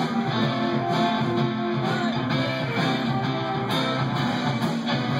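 Live rock band playing: electric guitars and bass over a steady drum beat.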